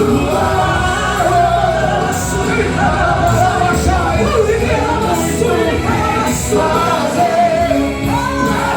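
Live worship band playing a slow Christian song, with a singer's voice holding a wavering, drawn-out melody without clear words over it, and cymbal splashes every second or two.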